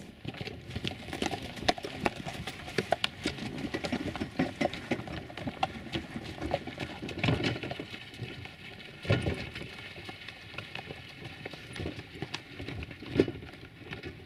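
Two horses pulling a wooden farm cart: irregular clopping of hooves with the cart rattling, and a couple of louder knocks about nine and thirteen seconds in.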